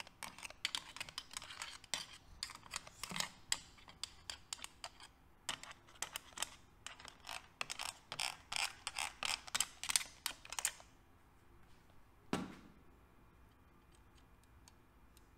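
Pump oil can being worked again and again to squirt oil onto the cam chains and crankshaft: a quick, uneven run of small clicks that stops about eleven seconds in, followed a little later by a single louder knock.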